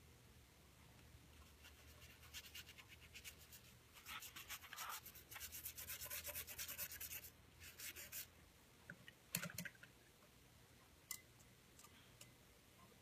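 Faint quick scratchy strokes of a paintbrush rubbing over watercolour-pencil colour on paper, in a run of rapid strokes, with a single knock about nine seconds in.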